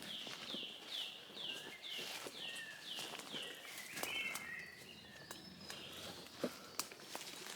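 A small woodland songbird singing a run of repeated downslurred whistled notes, about two a second, then a short warbled phrase a little after halfway. Footsteps through leaf litter and undergrowth give scattered sharp cracks and rustles.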